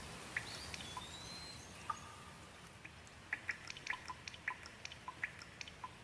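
Water dripping in irregular, quick drops over a soft hiss of rain, the drips coming thicker from about halfway through. A faint whistled note slides down and holds briefly near the start.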